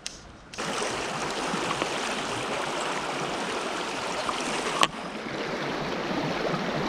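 Shallow riffle of a small rocky mountain stream: water rushing and splashing over stones in a steady even rush, which comes in suddenly about half a second in. A single sharp click sounds near five seconds in.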